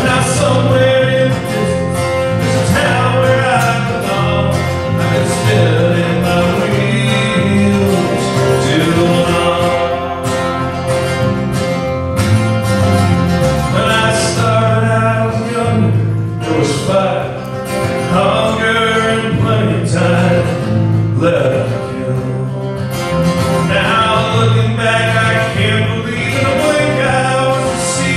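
Live band music: an acoustic guitar strummed over an electric bass, with a man's voice singing in stretches.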